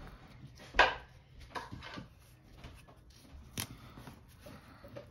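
Paper planner pages and a sticker handled by hand: a short rustle about a second in, a few soft rustles and taps, then one sharp tap past the middle as the sticker is pressed down.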